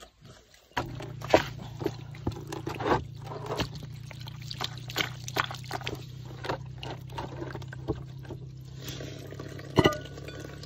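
Water pouring from a bamboo spout into a basin, with repeated wet splashes and squelches as hands rub and rinse a raw cow stomach in the water. There is a loud wet slap near the end.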